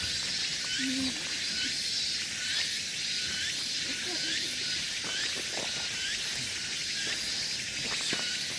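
Outdoor nature ambience: a steady high hiss, like an insect chorus or running water, with a short chirp repeating about twice a second and a few faint knocks.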